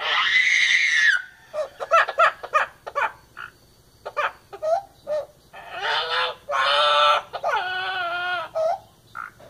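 Green parrot crying and whining. It gives a loud harsh call at the start, then a run of short clicking chatters, then after a lull several long wavering wails in the second half.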